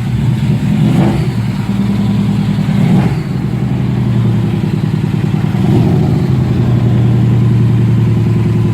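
Car engine running, with brief blips of revs about a second in and around three seconds, then running steadily.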